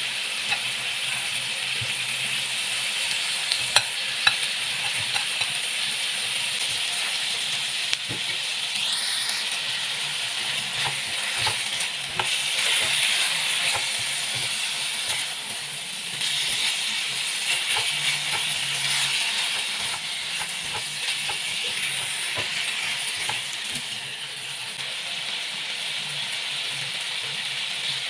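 Pork pieces sizzling steadily as they fry in a stainless steel wok, with occasional clicks and scrapes of a spatula stirring them against the pan.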